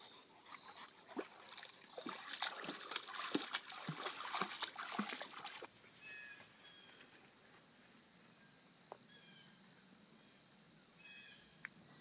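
Dog wading in a shallow stream: irregular small splashes and trickling water for about the first six seconds, then it goes quiet. Insects chirr steadily throughout.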